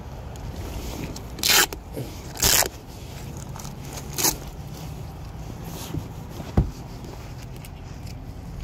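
Two short scrapes about a second apart, a fainter scrape a little later, and a sharp click near the end.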